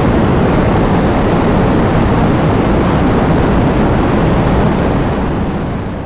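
Heavy rain falling, a steady dense hiss with a strong low rumble, beginning to fade out near the end.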